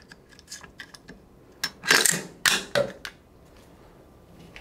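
Metal AR-15 parts being handled: a few light clicks, then several loud metallic scrapes and clacks about two seconds in as the bolt carrier group is pushed home in the upper receiver.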